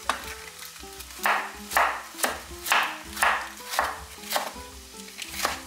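Knife slicing green peppers on a cutting board in short, regular strokes, about two a second, with background music.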